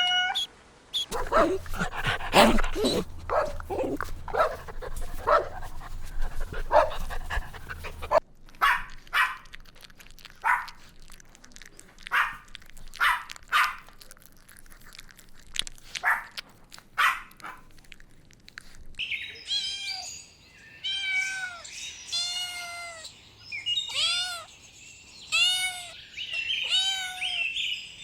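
Puppies and kittens calling: short, repeated yips and barks for most of it, then a run of high cries that rise and fall, about one a second, in the last third.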